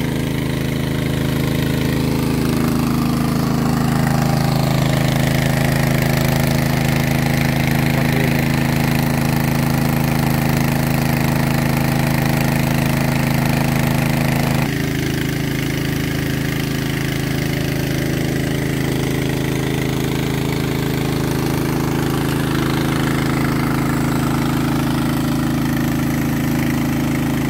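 Small petrol engine of a 3-inch water pump running steadily, driving the water circulation for hand-drilling a borehole. The tone shifts abruptly about halfway through, but the engine keeps running.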